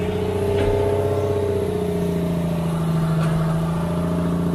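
Fishing boat's engine running steadily, its pitch shifting slightly about two seconds in.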